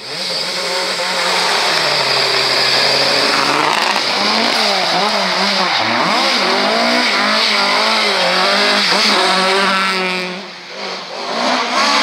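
Rally car engines at full throttle on a stage. First a Renault Clio rally car runs hard past. About four seconds in, a Ford Escort Mk2 rally car takes over, its engine note rising and falling sharply through throttle lifts and gear changes. It fades briefly near the end and then climbs again.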